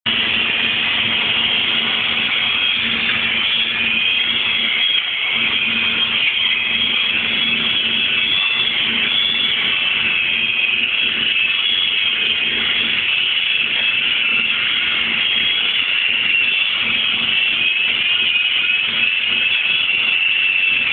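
Self-shielded flux-cored (Innershield) welding arc crackling steadily, with a low hum underneath.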